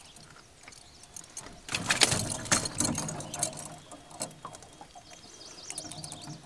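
Hands handling fishing tackle in a boat: scattered clicks, knocks and rattles, with a louder stretch of scraping and rustling about two seconds in.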